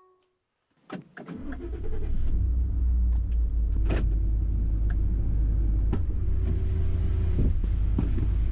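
A vehicle heard from inside, a sharp click about a second in, then a steady low engine and road rumble with scattered light clicks and knocks.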